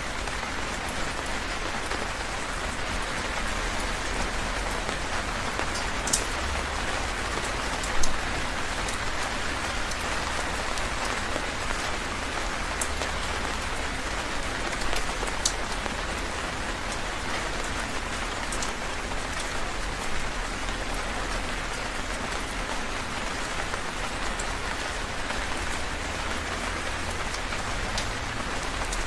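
Heavy rain falling steadily in a dense hiss, with scattered sharper drop splashes, one of the loudest about eight seconds in.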